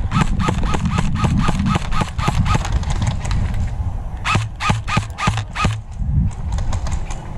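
A player running: quick footsteps with loose gear rattling on each stride, about five a second, in two runs with a short break between them.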